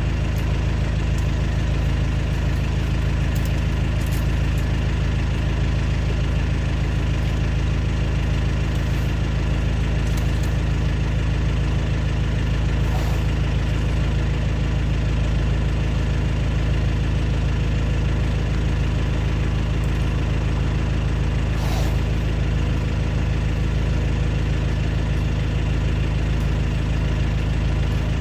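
Vehicle engine idling steadily, with a strong low hum and a few faint clicks.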